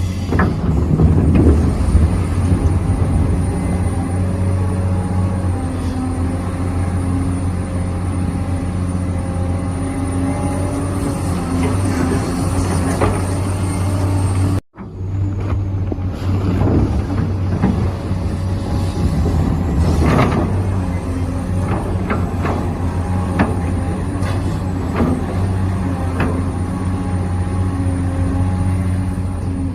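Hydraulic pump of a radio-controlled excavator running steadily, a hum with a thin high whine above it, under scattered knocks and scrapes of the model at work. The sound cuts out for an instant about halfway.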